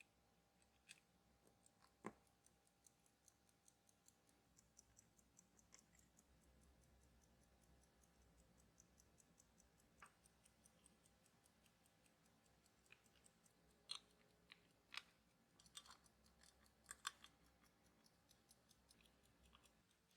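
Pocket watch movement ticking faintly and quickly, with scattered sharper clicks of small metal tools on the parts, several of them close together near the end.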